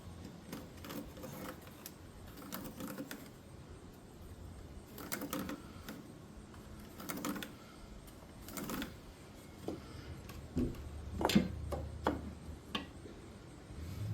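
Pencil marking cut lines on wooden subfloor in a series of short scratchy strokes, followed near the end by a few sharp clicks and knocks.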